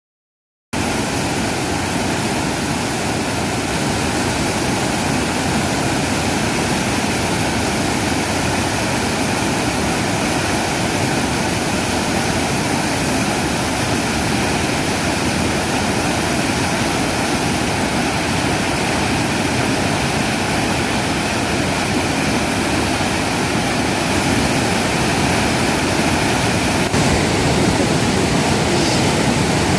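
Waterfall: water falling and splashing in a steady, unbroken rush, starting abruptly just under a second in.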